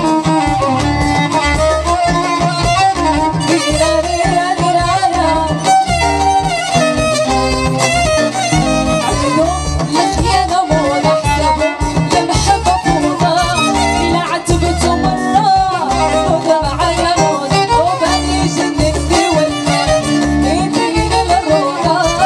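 Moroccan chaabi band playing live: a violin carries a gliding melody over a steady low beat, with a woman's singing voice in parts.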